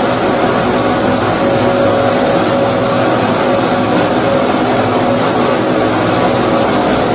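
Baby-sleep white-noise track: a steady, even rushing noise, heavier in the low end, with a faint steady hum in it and no changes.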